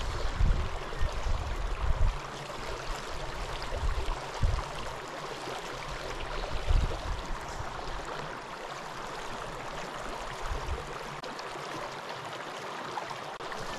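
Small shallow mountain stream running over rocks, a steady trickling wash, with scattered low thumps on the microphone, mostly in the first half.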